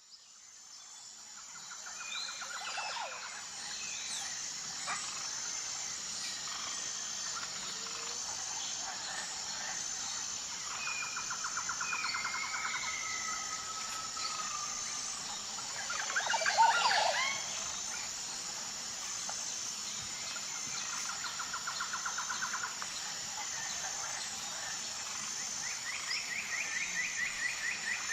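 Jungle ambience: a steady high insect drone with a regular pulsing chirp over it, and assorted bird calls and rapid trills on top. The loudest moment is a burst of calls about 16 to 17 seconds in. The ambience fades in at the start.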